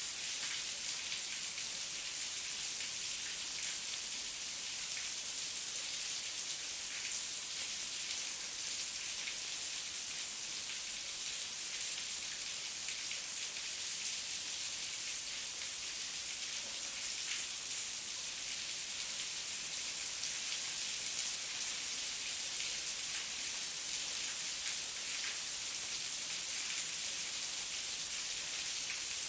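Heavy rain falling steadily, a dense hiss of many drops pattering on surfaces.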